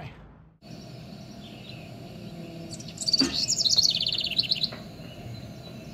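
Small birds chirping in quick high trills, loudest about three to four seconds in, over a steady low background hum.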